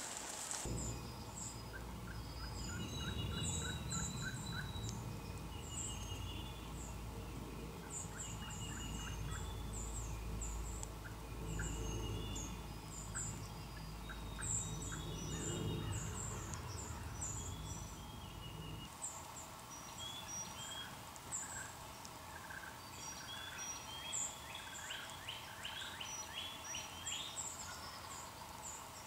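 Dawn chorus of songbirds chirping and calling, with wild turkeys gobbling in the distance. A low rumble on the microphone runs under it and stops suddenly about two-thirds of the way through.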